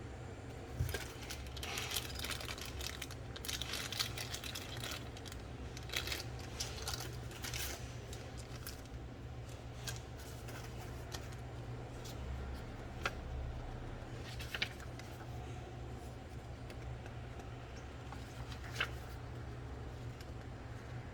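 Packaging of a boxed keyboard being handled: bursts of rustling and crinkling with scattered sharp clicks and knocks. A steady low hum runs underneath. The rustling is busiest in the first half and gives way to occasional single clicks.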